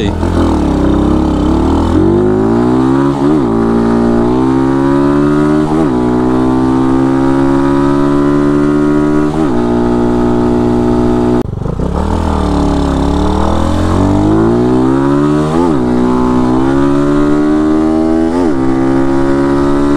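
Single-cylinder 150 cc engine of an RPS Condor motorcycle accelerating hard through the gears. The engine note climbs, then drops back at each upshift. Partway through it falls back and pulls up through the gears again. The bike runs on a newly fitted Nibbi 26 mm carburettor, which the rider finds still a little rich at low revs.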